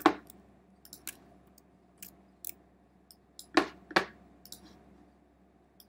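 Scattered clicks of a computer mouse and keyboard, about half a dozen sharp ones spread out. The two loudest come close together a little past halfway.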